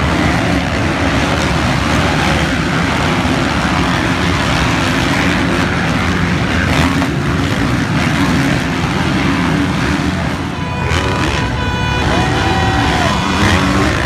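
Several motocross bikes racing past on a dirt track, their engines running and revving together in a loud, dense, continuous blare.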